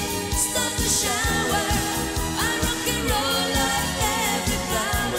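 A woman singing a pop song over a band backing with a steady drum beat.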